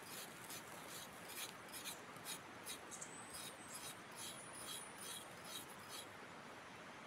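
Dry leaves rustling and crackling in a quick, uneven run of short strokes, about two or three a second. A faint high chirp sounds in the middle.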